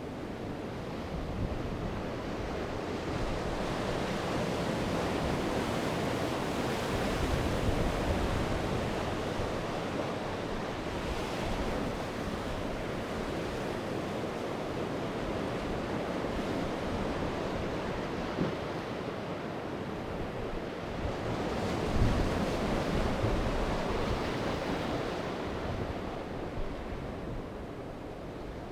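Sea waves breaking and washing on the shore, swelling and easing in slow surges.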